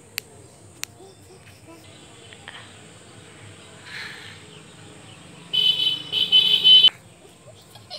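A horn honks in a few quick blasts lasting about a second and a half, starting about five and a half seconds in, over a faint steady background.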